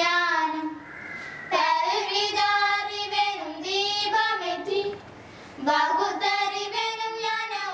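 A group of schoolgirls singing a song together, in long held phrases with short pauses about a second in and about five seconds in.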